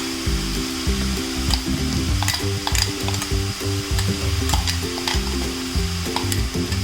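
Papaya, coconut and chilli stir-fry sizzling in a hot pan while a spoon stirs it, with scattered sharp clicks of the spoon against the pan.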